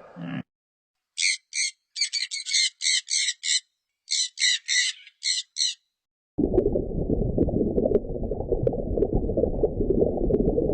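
About fifteen short, harsh squawking calls from a bird, given in quick runs of two to five, then stopping. A dense, low rushing noise starts about two-thirds of the way through and carries on.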